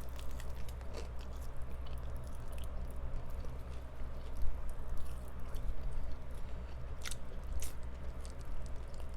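Close-up chewing and biting of fried chicken, with scattered crunches and wet mouth clicks, two sharper crunches near the end. A steady low hum from a room fan runs underneath.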